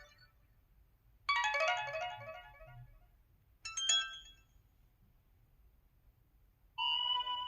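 Three short notification tones from a SKY Vega Racer phone, one after another with quiet gaps. First comes a quick run of notes that fades out, then a short bright chime, and near the end a steady tone held for about a second.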